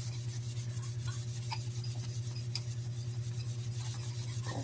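A cloth rubbing over a bicycle crank arm as it is wiped and polished, with a few faint scrapes and ticks, over a steady low hum that pulses quickly and evenly.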